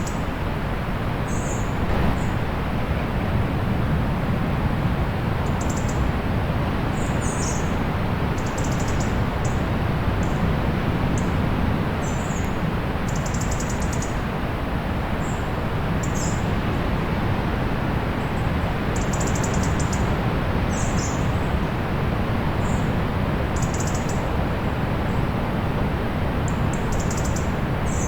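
Steady low rumble of distant sea surf, with short high bird chirps scattered throughout, a few every couple of seconds.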